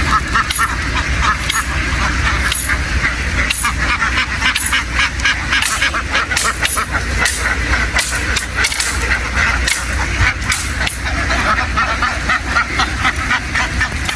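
A large flock of ducks quacking continuously, many calls overlapping into a dense chorus, over a steady low rumble.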